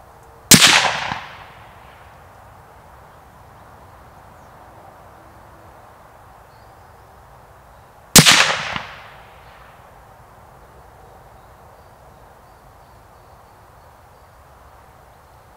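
Two shots from a 6.5 Creedmoor Mauser M18 rifle, about eight seconds apart. Each is a sharp crack followed by an echo that dies away over about a second.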